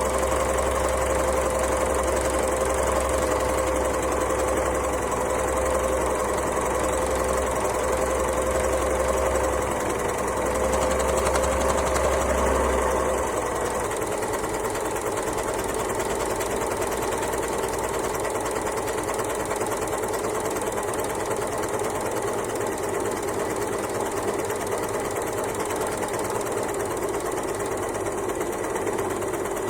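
Overlocker (serger) sewing machine running steadily. About halfway through, its pitch drops slightly and the deep hum falls away, and it runs on a little quieter.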